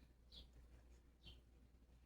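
Near silence: room tone, with two faint brief high-pitched ticks.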